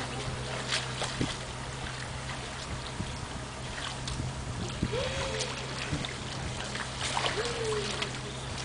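Idling tour-boat motor with a steady low hum over lapping river water, and water splashing near the end as the crocodile lunges at the bank.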